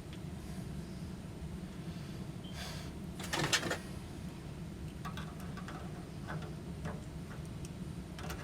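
Metal parts of a gas water heater's burner assembly and tubing being handled: a short scraping rattle about three seconds in, then a few light clicks and taps, over a steady low hum.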